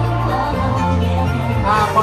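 Loud background music with a steady bass line, with a bit of voice near the end.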